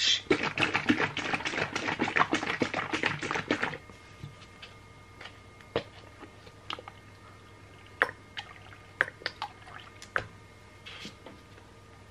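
Liquid sloshing and splashing in a close run of sharp strokes for about four seconds, then only a few scattered drips and light clicks over a faint steady hum.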